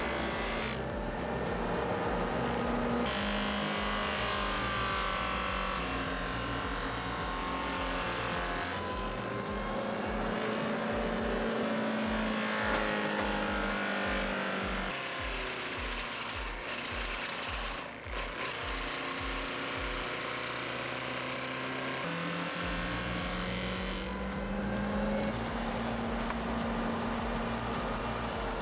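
Background music with a steady low beat and sustained notes that change pitch in steps, over dense machine noise.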